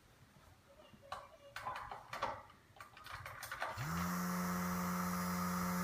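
A few clicks, then about three and a half seconds in a small DC fan motor from a hot air blower, driving a plastic USB-fan propeller, starts up and quickly spins up to a steady whirring hum with a rush of air.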